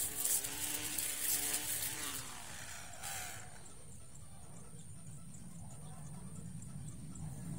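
Battery-powered electric string trimmer running and cutting grass, with a dense hiss of line against grass. About three seconds in, the sound drops and thins as the head is lifted clear of the grass.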